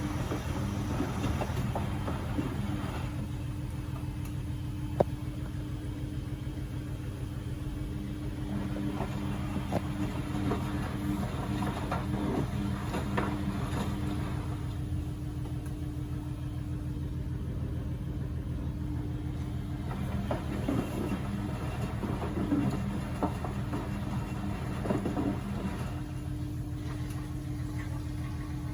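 Beko WMB71642W washing machine in its final rinse, the motor turning the drum with a steady hum, the low tone dropping out and returning now and then. Soft knocks throughout, and one sharp click about five seconds in.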